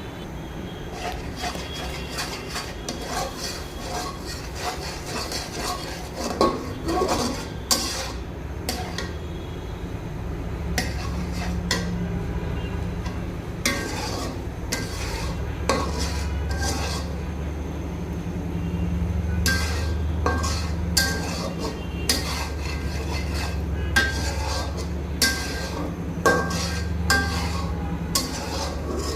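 A cooking spoon stirring a curry in a pot, scraping and clinking against the metal at irregular intervals. Underneath runs a steady low hum.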